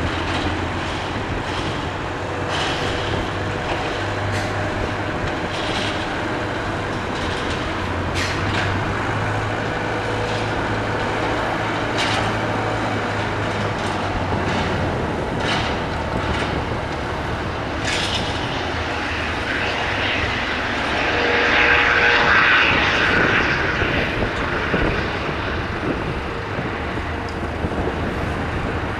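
Jet engines of a Boeing 777-200LR, its GE90 turbofans running as the airliner taxis or begins its take-off. It is a steady jet noise that swells for a few seconds about three-quarters of the way through, with a few sharp clicks.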